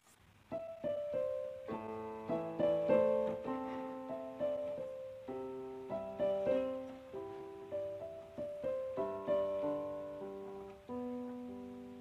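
Background piano music starts up: a melody of struck notes and chords, each ringing and fading.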